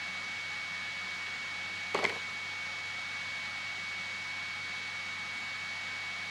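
Steady hiss of room noise with a constant high-pitched whine and a low hum underneath; a brief short sound about two seconds in.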